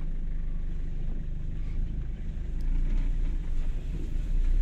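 Toyota HiLux driving slowly down a rough, washed-out dirt track, heard from inside the cab: a steady low engine and road rumble that wavers unevenly from about two seconds in as the truck works over the rutted ground.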